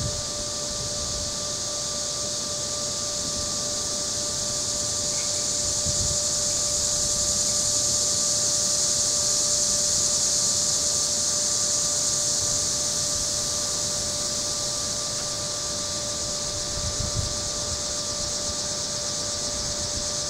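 Cicadas droning in the trees: a high, hissing buzz that swells to its loudest midway and fades again, with a faint steady tone underneath.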